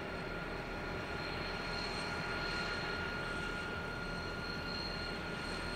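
Diesel-electric freight locomotives (BL, X and G class) idling at a standstill: a steady engine drone with a thin high whine over it.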